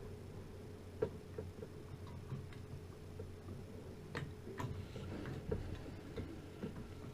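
Irregular small clicks and taps of hands handling computer hardware, over a steady low hum.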